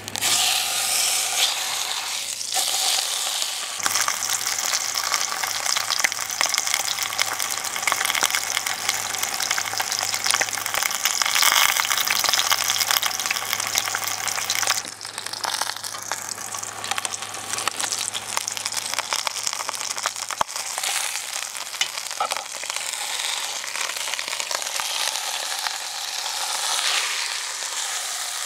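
Prime rib roast searing in hot olive oil in a preheated cast-iron camp Dutch oven over charcoal: a loud, steady sizzle with crackling that starts as the meat goes into the pot and eases somewhat about halfway through.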